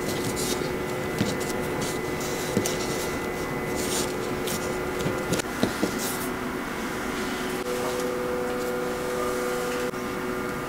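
Soft rubbing and a few light taps of hands shaping soft churro dough on a wooden cutting board, over a steady electrical hum.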